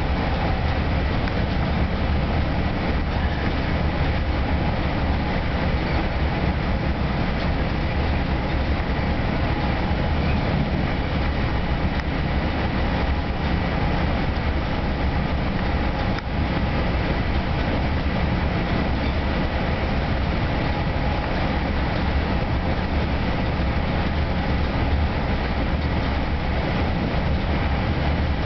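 Steady running noise heard inside a bi-level commuter train coach travelling at speed: wheels on rails and a constant low rumble, even throughout.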